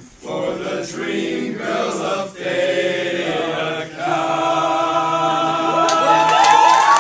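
A group of young men singing a slow serenade a cappella, settling on a long held final chord about four seconds in. Cheering and clapping break out near the end.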